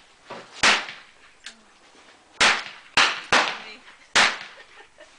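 Handgun shots on a shooting range: five sharp reports, each with a short ring, one about half a second in and then four between two and a half and four and a half seconds in, two of them only a third of a second apart.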